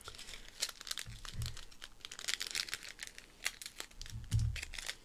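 Plastic packaging crinkling as it is handled, in a run of small irregular crackles, with two soft bumps about a second and a half in and again near the end.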